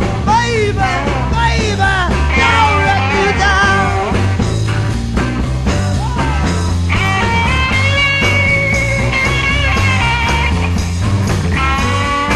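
Live psychedelic rock band playing, with electric guitar, bass and drums. A lead melody slides up and down in the first few seconds, then holds long notes from about seven seconds in.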